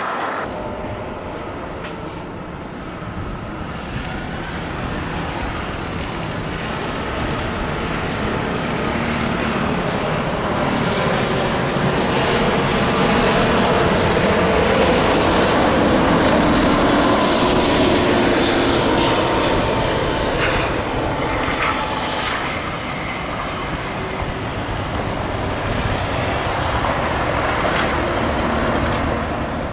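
Airbus A330-300 jet engines on a landing: a steady rushing jet noise with a faint whine. It builds to its loudest about halfway through as the airliner flares and touches down, then eases as it rolls out along the runway.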